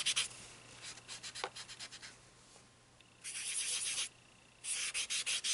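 Cotton pad rubbing dry soft pastel onto a paper page in quick scrubbing strokes, a few light clicks at the start and a short pause about halfway, then a fast run of strokes near the end.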